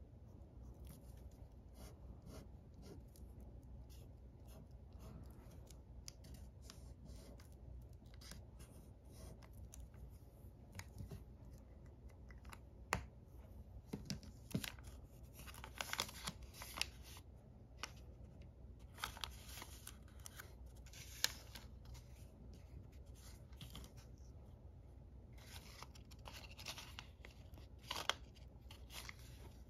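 Close handling of origami paper. Faint scratches of a felt-tip pen drawing on paper give way to rustling and crinkling of folded paper, with several sharp clicks and taps. The loudest clicks come a little under halfway through, about two-thirds of the way in and near the end, over a low steady hum.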